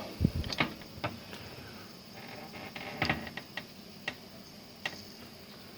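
Scattered light clicks and taps of multimeter probe tips being set down and moved on a motherboard's resistors, with a quick cluster of several taps about three seconds in.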